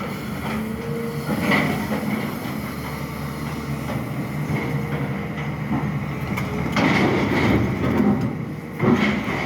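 SANY excavator's diesel engine running steadily while digging, with short hydraulic whines and several bursts of scraping and clanking, the loudest near the end.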